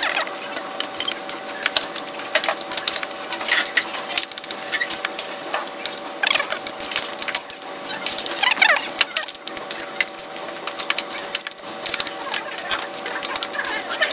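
Metal utensils scraping and clinking against a stainless steel bowl in quick, irregular strokes while cold noodles are mixed with their spicy seasoning paste.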